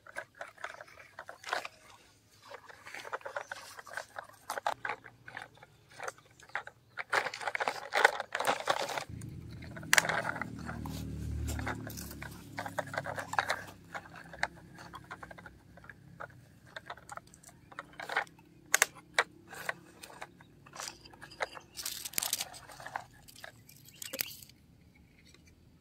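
Plastic toy construction vehicles scraped and pushed over loose gravel and dry dirt, giving irregular crunches, scrapes and small clicks of stones. A low rumble rises for a few seconds about a third of the way in.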